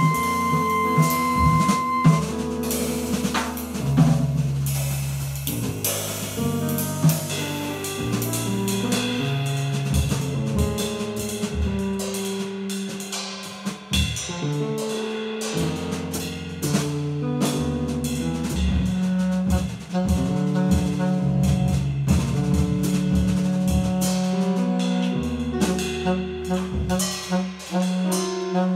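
Live jazz quartet playing: saxophone melody over double bass, piano and a busy drum kit with cymbals. A steady high tone is held for about the first two seconds.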